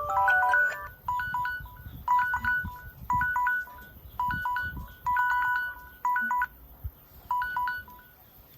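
Samsung Galaxy phone ringtone or alarm tone: a chiming melodic phrase ends about a second in, then short groups of high electronic beeps repeat about once a second and stop about seven and a half seconds in.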